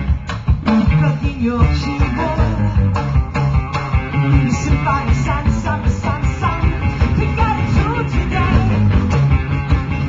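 Live rock band playing: a woman singing over electric guitar and a drum kit.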